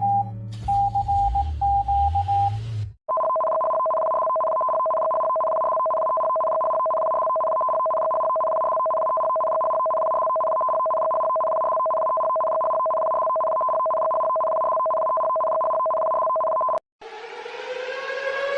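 Emergency alert broadcast tones: first the tail of a pulsed beeping alert over low droning tones, then, after a brief gap, a steady two-tone electronic attention signal held for about fourteen seconds and cut off abruptly. Near the end a new alert starts with a rising tone.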